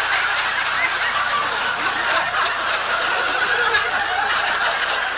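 An audience laughing together, the laughter holding at a steady level.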